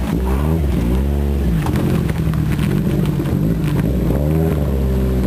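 Toyota Carina A63's 4A-G twin-cam four-cylinder through its muffler, revved twice as the car pulls away, the pitch rising and falling back each time, over a steady low exhaust drone.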